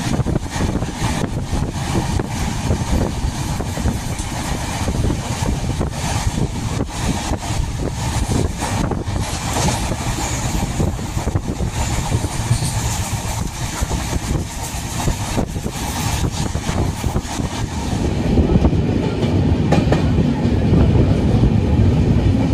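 Train running along the track, heard from on board: a steady rumble of wheels on rails with a rapid patter of clacks. In the last few seconds the low rumble grows louder.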